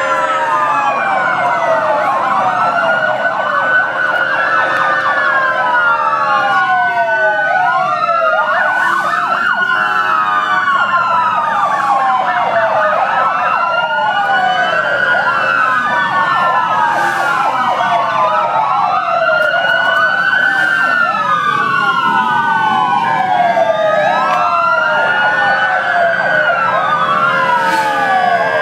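Several police motorcycle sirens wailing at once, their rising and falling sweeps overlapping without a break, with a steady held tone sounding underneath at times.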